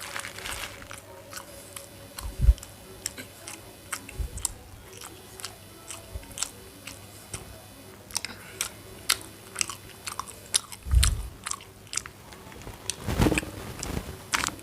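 A person chewing and biting food close to the microphone: many small mouth clicks and crunches, with a few low thumps along the way.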